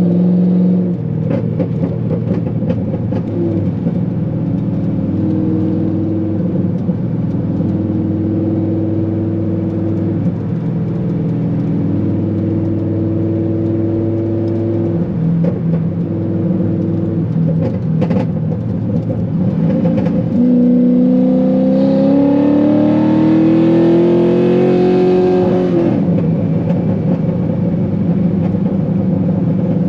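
Chevrolet Corvette C5's 5.7-litre V8 through a Corsa exhaust, driving at steady low revs for most of the time. About twenty seconds in it accelerates with a rising note for about five seconds, then the revs drop back.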